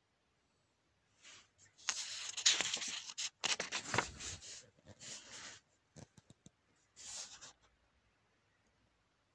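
Paper book pages being turned and handled by hand: rustling and flicking in several bursts, loudest in the first half, with a few light ticks and one last short rustle near the end.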